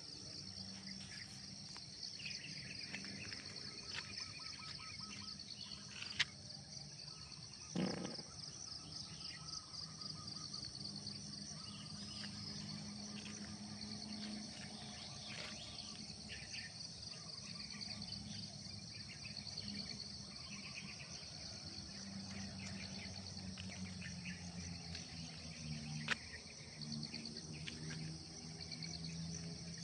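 Outdoor dawn chorus of insects trilling steadily in a high pulsing band, with scattered bird chirps and a low steady hum underneath. A few sharp clicks stand out, about six and eight seconds in and again near the end.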